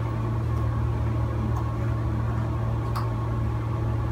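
A steady low mechanical hum, with a few faint light clicks as small plastic toy pieces and the scale pans are handled.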